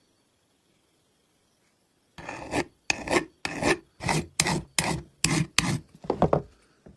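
About nine quick back-and-forth abrasive strokes, like rubbing down a part by hand, beginning about two seconds in at roughly two strokes a second.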